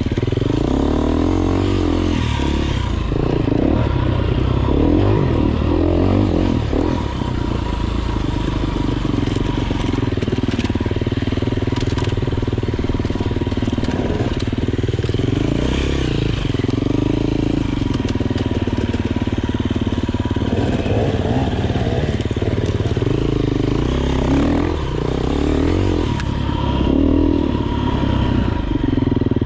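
Enduro motorcycle engine running as the throttle opens and closes, its pitch rising and falling over and over.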